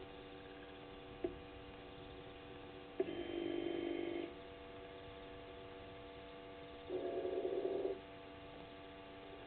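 Steady electrical hum, broken twice by the camera's pan-tilt-zoom motor running: a whirr starting with a click about three seconds in and lasting just over a second, and another near the seventh second lasting about a second. A single sharp click comes about a second in.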